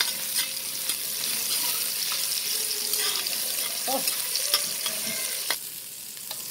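Sliced onions sizzling in hot oil in an aluminium pot, stirred with a metal spoon that clicks and scrapes against the pot. The sizzle turns quieter about five and a half seconds in.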